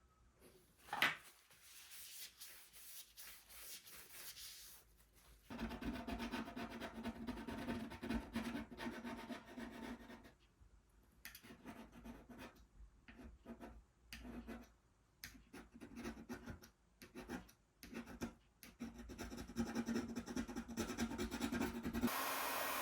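Irregular scraping and rubbing of a repair tool against a tablet's parts, in uneven strokes with short pauses. A steady blowing noise starts just before the end.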